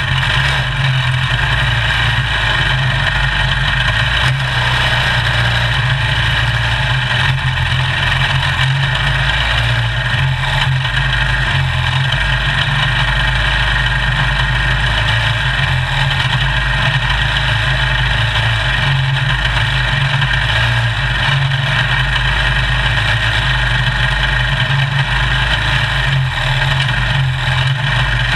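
A small race car's engine idling steadily while the car sits stopped.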